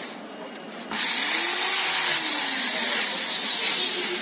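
Cordless drill running about a second in, spinning the angle grinder's spindle and gear head. Its pitch rises as the drill speeds up, then falls as it slows.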